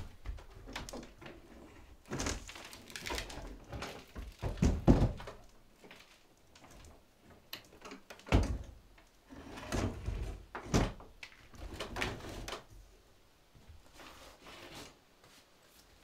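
Wooden knocks, thuds and scrapes of an old wooden window sash being handled on a wooden workbench, lifted upright and set back down. The knocks come irregularly, the loudest about five seconds in and another about eight seconds in.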